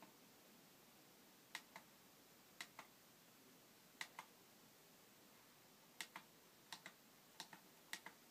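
Small push-button clicks on an emergency lightbar's controller, seven quick double clicks at uneven intervals over faint hiss, as the buttons are pressed to step through the flash patterns.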